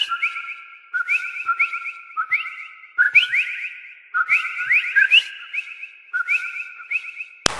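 A chorus of common coquí frogs calling: repeated two-note 'co-quí' calls, a short lower 'co' followed by a higher, upward-gliding 'quí'. Several frogs overlap at about one or two calls a second.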